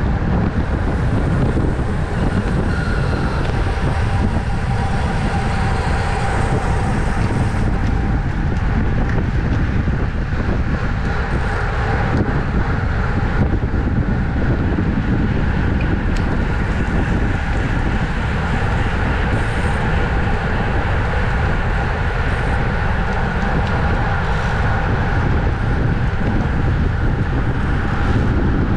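Wind buffeting the microphone of a camera on a bicycle ridden at race speed, with a steady road rumble beneath.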